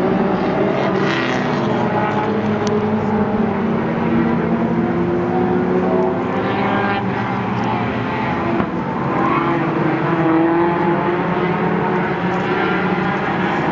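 A field of mini stock race cars' four-cylinder engines running at racing speed around the circuit, several engine notes overlapping and rising and falling as the cars accelerate and brake.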